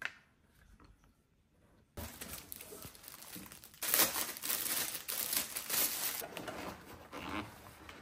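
Plastic packaging crinkling and rustling as items are handled and lifted out of a cardboard shipping box, starting about two seconds in and loudest in the middle.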